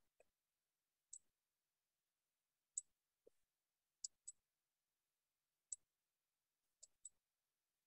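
Computer mouse clicking: about seven short, sharp clicks at uneven intervals, some in quick pairs, against near silence.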